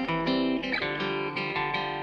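Background music led by a guitar playing plucked notes with a steady rhythm.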